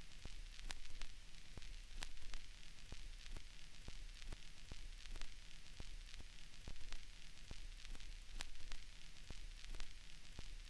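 Vinyl record surface noise: steady hiss with irregular crackles and pops, over a low hum.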